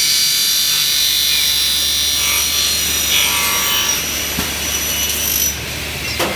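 Faster F88 double-head aluminium cutting saw cutting an aluminium profile at 45 degrees: a loud, high-pitched screech with several steady whining tones that stops about five and a half seconds in, followed by a single sharp knock near the end.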